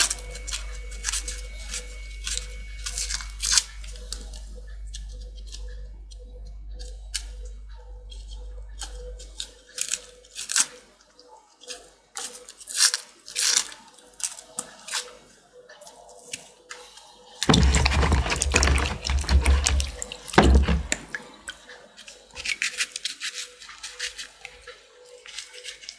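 Papery onion skin crackling and snapping as it is peeled off by hand, a rapid scatter of sharp clicks. About two-thirds through, water runs for about three seconds as the onion is rinsed.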